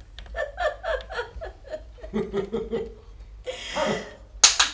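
People laughing in short rhythmic bursts, a higher voice first and then a deeper one, ending in a breathy rush and a single sharp crack near the end.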